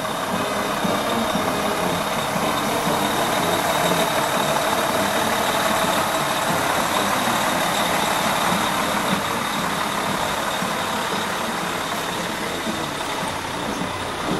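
Fire engine tanker's diesel engine running as the truck rolls slowly past, growing louder as it draws alongside about halfway through, then fading as it moves away.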